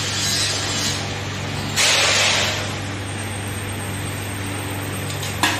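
Steady low hum of a workshop machine motor running. About two seconds in a louder hissing noise lasts about a second, and there is a short click near the end.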